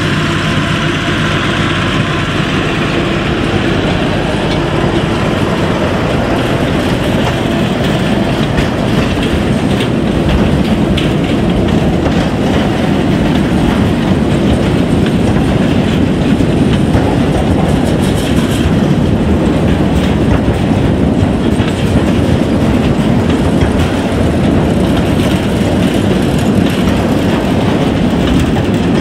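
Narrow-gauge peat railway train of steel tipper wagons rolling past, the wheels clattering on the rails in a steady, loud rumble.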